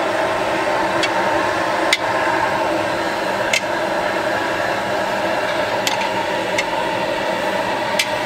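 Steady hiss of a gas stove burner under a pan of boiling masala, with about six sharp clicks scattered through it.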